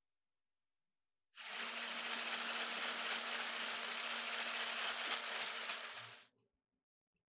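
Electric hand mixer with a whisk beater running at a steady speed, whipping egg whites and sugar toward stiff peaks; a steady whirr with a low hum under it starts about a second in and cuts off near the end.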